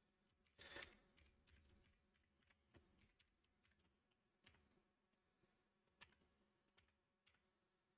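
Faint, scattered keystrokes and clicks on a laptop keyboard, spaced irregularly about a second apart, with a short soft rush of noise just under a second in.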